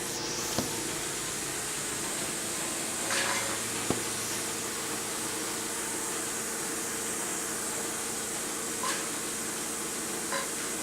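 Steady mechanical hum and hiss, with a few light clicks and knocks: a sharp click about half a second in, another about four seconds in, and brief small noises near the end.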